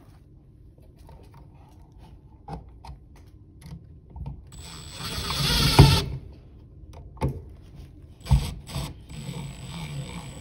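Cordless power driver running up as it drives an outlet's mounting screw into the electrical box, for about a second and a half around the middle, building to its loudest just before it stops. A few sharp knocks follow, and the driver runs again near the end.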